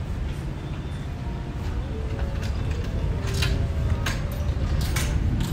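Busy city street ambience: a steady low rumble of traffic and urban background, with a few sharp clicks or taps in the second half.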